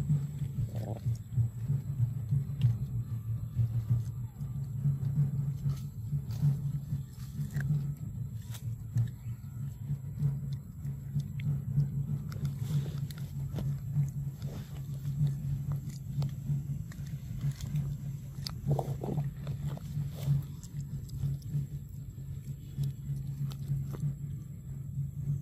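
A steady low hum that swells and fades without stopping, with a faint thin high tone held above it and a few scattered soft clicks.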